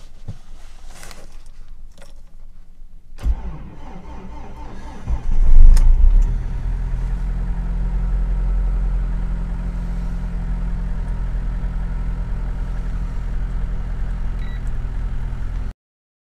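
Chevrolet Niva engine cold-started at about −52 °C: the starter cranks from about three seconds in, the engine catches and flares up loudest around five to six seconds in, then settles into a steady fast idle that cuts off suddenly near the end.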